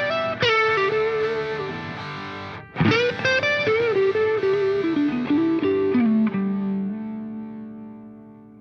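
Music: a distorted electric guitar playing a lead melody with note bends, running down to a low note that rings on and fades out near the end.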